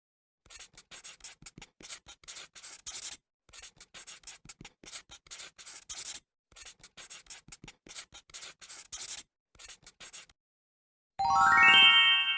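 Scratchy writing strokes on paper, many quick strokes in four runs with short gaps between them. About a second before the end, a bright chime starts and rises in pitch.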